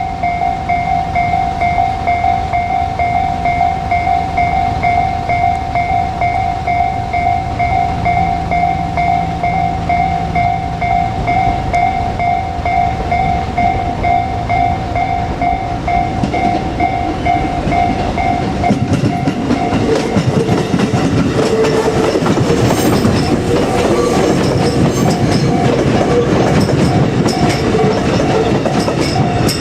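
Level-crossing warning bell ringing in a steady repeating pulse. In the last third a JR Kyushu 787 series limited express train runs through the crossing under the bell, its wheels rumbling and clattering over the rail joints.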